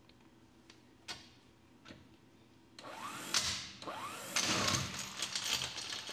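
12-volt electric impact wrench on a car wheel's lug nut: a couple of light clicks, then the motor spins up with a rising whine and goes into rapid hammering on the socket, breaking loose a lug nut torqued to 100 foot-pounds.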